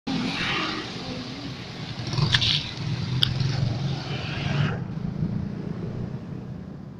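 Vehicle passing with its engine running low, under a loud hiss of road and air noise that cuts off abruptly just before five seconds in; two sharp clicks come about two and three seconds in.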